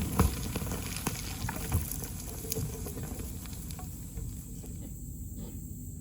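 A four-wheel-drive vehicle's engine running steadily at low speed in four-low, with scattered knocks and crunches, the loudest just after the start.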